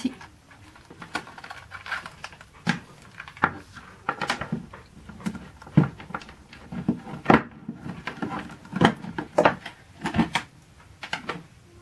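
Hands handling power cords and a power supply brick against a hard plastic toolbox: irregular clicks, taps and knocks with rustling of the cables.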